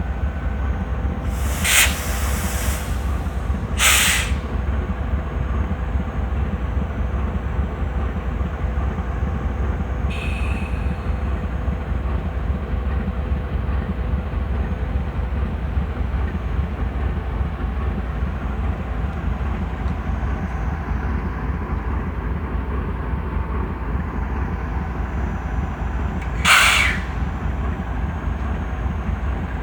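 GE TE33AC diesel locomotive's V12 engine idling with a deep, steady rumble. It is broken by short, sharp blasts of air hiss, the locomotive's 'sneezes': two in the first few seconds and one near the end.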